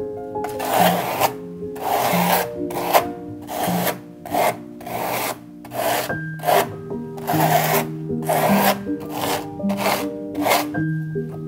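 Plastic scraper dragged through thick white paste on a stretched canvas: repeated short rasping scrapes, about one or two a second.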